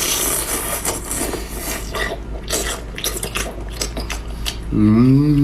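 Close-up mouth eating sounds: wet, crunchy chewing with irregular clicks and smacks while eating skewered small sea cucumbers. Near the end a voiced hum sets in.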